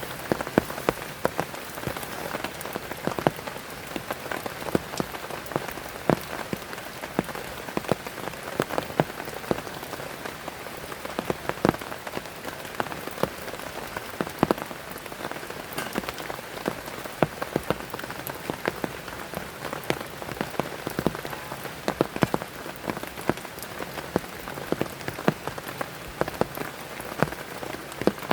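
Heavy rain falling steadily, with many irregular sharp taps of large drops hitting a surface close by.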